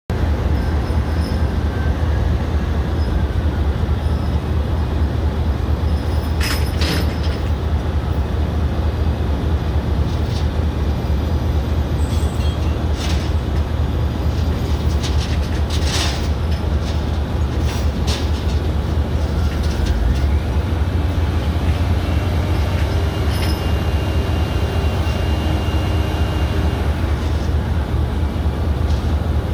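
Diesel engine of a Hyster reach stacker running steadily, a deep even rumble, with a few short knocks scattered through it.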